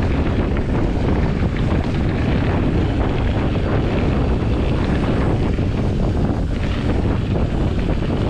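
Wind rushing steadily over the camera microphone as a Trek Top Fuel mountain bike rolls fast along a dirt trail, with tyre noise and faint knocks and rattles over bumps.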